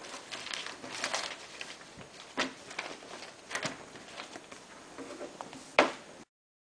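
Scattered light knocks and rustling, about a dozen small hits with one sharper knock near the end.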